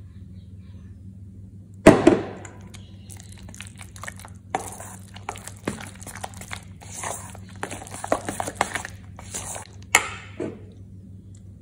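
A spoon stirring thick aubergine and walnut dip in a stainless steel mixing bowl: irregular scraping and squelching, opened by a sharp knock about two seconds in and with a couple more knocks near the end. A low steady hum runs underneath.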